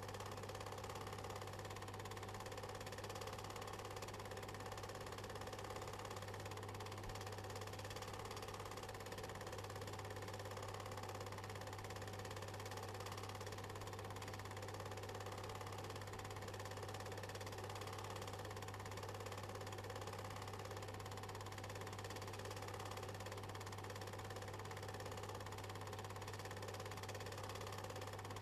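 A faint steady hum with hiss, unchanging throughout, with no other sounds over it.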